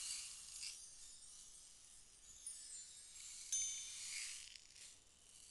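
Faint ambient soundscape music: high, tinkling chime-like tones ringing over a soft hiss, with a few brighter strikes, the loudest about three and a half seconds in.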